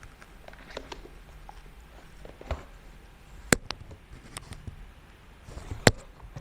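Cardboard packaging being handled and opened: scattered light taps and scrapes, with a sharp click about midway and another near the end, the second after a brief rustle.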